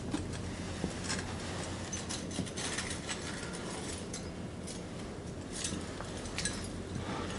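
Scattered light clicks and metallic clinks of hand tools and small metal parts being handled, over a steady low hum.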